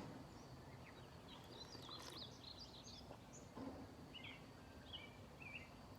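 Faint birdsong: several short, warbling chirps over a low, steady background hum.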